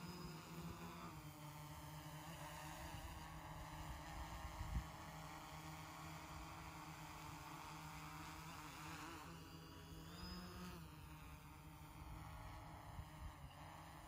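Faint buzz of a quadcopter's propellers and motors, its pitch rising and falling as the throttle changes, with a brief thump about five seconds in.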